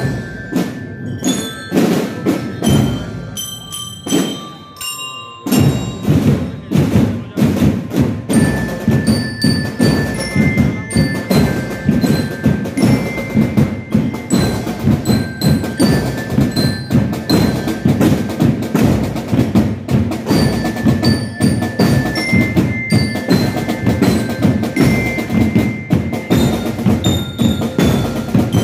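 A marching band's drum section playing a steady processional cadence on snare and bass drums, with high ringing notes picking out a tune over it. The drumming is sparse at first and comes in fully about five seconds in.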